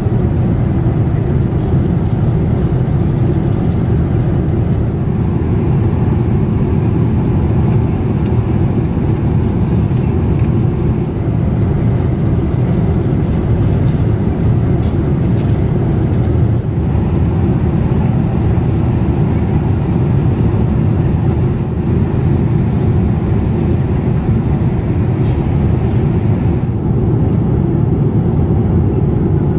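Steady low rumble of a Boeing 787-8 cabin in flight: the constant engine and airflow noise of an airliner at cruise.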